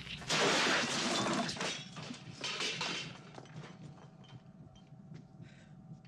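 Film sound effects: a loud crash and clatter of breaking and scattering tableware, with a second burst about two and a half seconds in, then trailing off into scattered small knocks and rattles.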